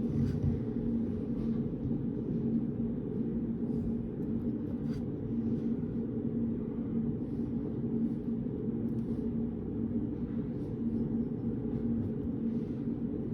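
Steady low hum of a reading room's ambience, with a constant tone in it, and a few faint scattered ticks and rustles on top.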